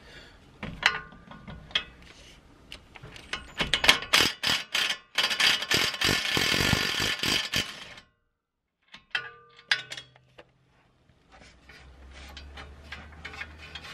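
Ryobi 18V cordless impact wrench hammering for about four seconds on a suspension bolt behind the front hub, undoing it, then stopping abruptly. Light metallic clicks and clinks of the tool and bolt come before and after.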